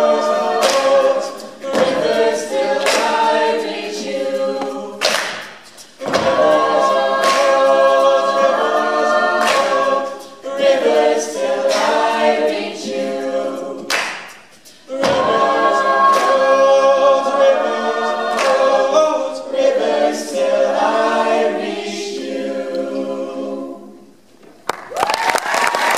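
Mixed-voice a cappella group, male and female singers, singing held chords in several parts, with brief breaks between phrases; the final chord fades out and applause breaks out just before the end.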